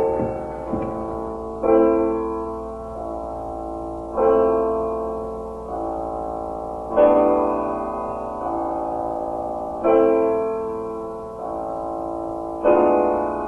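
Slow, sombre solo piano music: full chords struck about every two and a half to three seconds, each ringing out and fading before the next.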